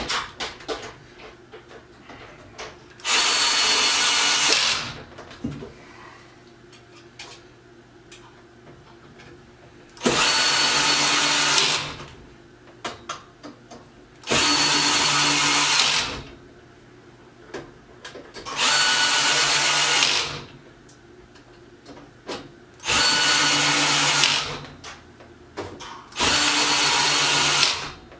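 A power drill driving screws home in six short runs, each about two seconds of steady motor whine, with light clicks and taps of handling between them.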